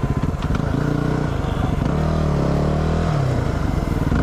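Yamaha WR250R single-cylinder engine running while riding. The engine pitch dips and then climbs back about halfway through.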